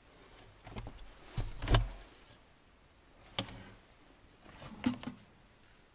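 Knocks and thuds from the wooden door of a log dugout shelter being pulled open and handled, coming in a few short clusters, the loudest just under two seconds in.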